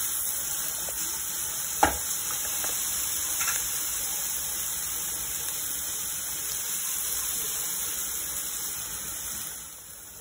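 Diced vegetables and peanuts sizzling as they fry in ghee in a pan, stirred with a wooden spatula, with one sharp knock of the spatula on the pan about two seconds in. The sizzle drops quieter near the end.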